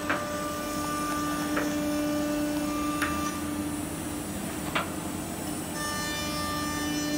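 Holztek CNC nesting router running: a steady hum with a constant tone, broken by a few short clicks and scrapes. More high-pitched tones join about six seconds in.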